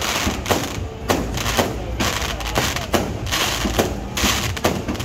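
Fireworks going off: an irregular string of sharp bangs and pops, about two a second, as aerial shells burst.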